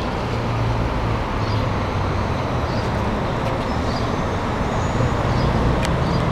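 Steady urban road traffic: a constant low rumble and hiss of passing cars and buses.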